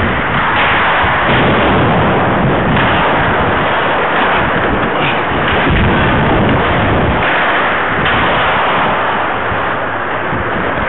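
Loud, steady rushing noise with rumbling lows: wind buffeting the microphone of a camera carried by a skating ice hockey player.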